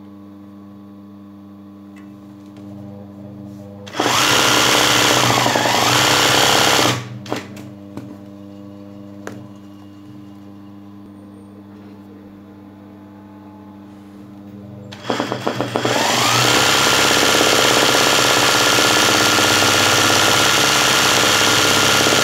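Sewing machine stitching zigzag satin stitch for free-motion embroidery. It runs in two bursts: a short one about four seconds in that speeds up and slows down, and a longer one that starts with a few stutters about fifteen seconds in and then runs steadily at speed. Between the bursts there is a low steady hum.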